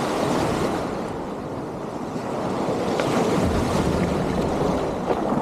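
Small waves breaking and washing through marsh grass in a steady rush of surf, with wind buffeting the microphone.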